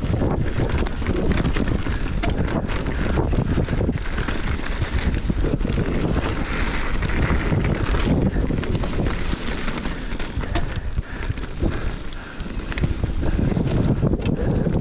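Wind buffeting the microphone over the rumble of mountain bike tyres on rocky dirt singletrack, with frequent clicks and rattles as the bike runs over stones.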